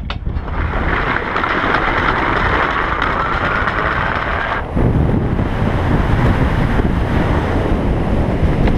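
Ski-jumping skis running down the tracks of a summer ski-jump inrun, a loud hiss with a faint rising whine as speed builds. About five seconds in, at takeoff, the hiss gives way to a heavy low wind rush on the head-mounted camera's microphone through the flight and onto the plastic landing matting.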